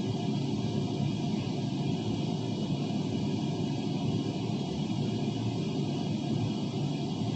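Bathroom exhaust fan running steadily, a constant low whooshing hum with a faint hiss above it.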